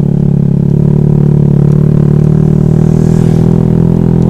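Honda Vario scooter's single-cylinder engine running at a steady pace while riding, a loud, even hum.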